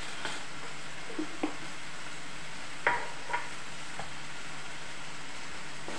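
Spiced masala sizzling steadily as it fries in a pan, with a few sharp clinks of utensils against the pan and jar, the loudest pair about three seconds in.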